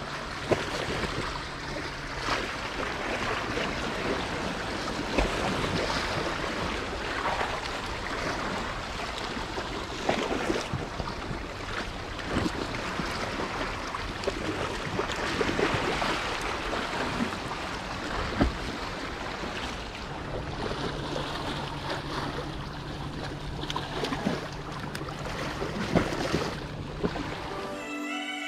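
Sea water lapping and washing against shoreline rocks, with wind on the microphone and short sharp splashes now and then.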